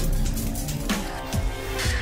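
Electronic logo-intro music with three whoosh-and-hit effects and falling bass drops in the second half.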